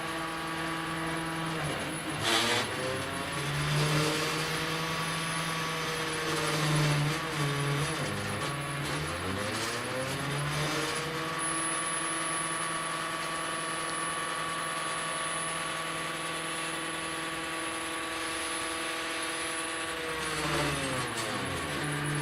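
Stepper motors of a DIY CNC table whining as they drive a laser module over plywood. The pitch slides down and back up several times as the axes slow, change direction and speed up again, with a long steady run in the middle. There is a short click a couple of seconds in.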